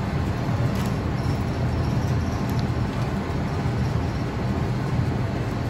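Steady low rumble of running kitchen machinery, with a few faint short scrapes of a table knife spreading butter on thick bread.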